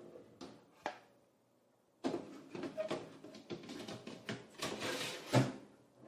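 Handling noise at a Cuisinart TOB-1010 toaster oven broiler: a couple of clicks as its door opens, then after a brief lull the metal baking tray scrapes and rattles onto the oven's wire rack. The loudest knock comes about five seconds in.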